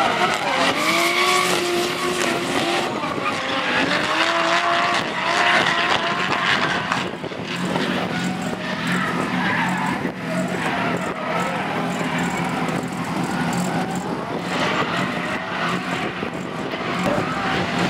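Two drift cars sliding in tandem, their engines revving up and down with tyres skidding and squealing.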